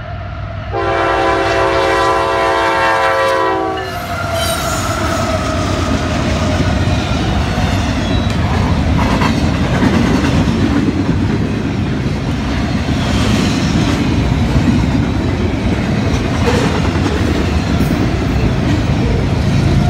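Diesel locomotive air horn sounding one long blast of about three seconds as the train nears the grade crossing. Then a double-stack container freight train rolls past close by, a steady heavy rumble with the clack of wheels over the rail joints.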